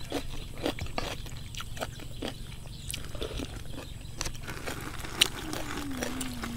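Close-up chewing of crisp raw vegetables and noodles: irregular crunches two or three a second, with a brief low falling hum near the end.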